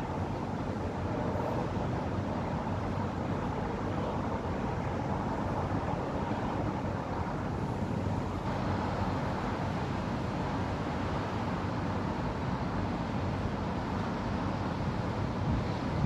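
Steady wash of distant road traffic, with no single event standing out.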